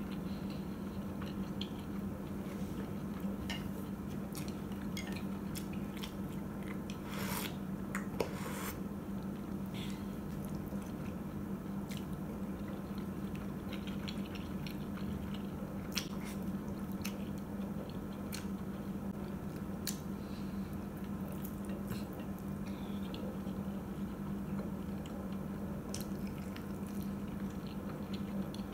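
Close-miked chewing and squishy bites of soft oden pieces such as fish cakes and fried tofu, with scattered clicks of wooden chopsticks against a glass bowl, over a steady low hum. A brief louder noise comes about eight seconds in.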